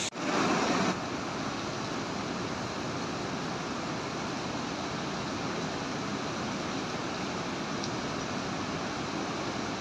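Mountain stream rushing steadily down a rocky cascade, a little louder in the first second.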